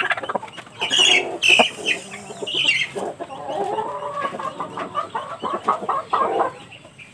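Rooster squawking and clucking while held and restrained for a spur trim. A few loud, high squawks come in the first three seconds, followed by lower, wavering clucks that die away near the end.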